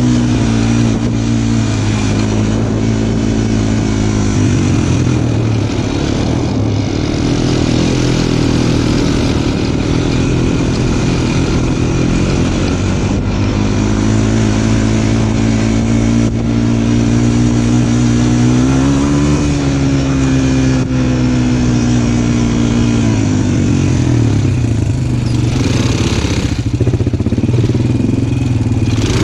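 Small off-road vehicle engine running close by while riding, its pitch dropping and rising as the throttle is eased and opened again, with a steady rushing noise over it.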